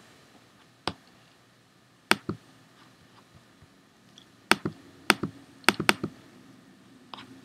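About ten sharp clicks from a computer mouse and keys being worked, spaced out over several seconds with several coming in quick pairs.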